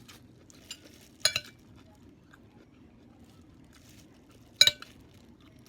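Eating utensils clinking against a dish: two sharp clinks with a brief metallic ring, about a second in and again some three seconds later, with a few faint small clicks between.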